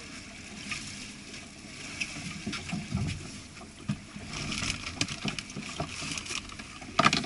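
Water lapping and slapping against the hull of a small boat drifting on open sea, with scattered knocks and clicks on board and a louder sharp knock near the end. No engine is heard running.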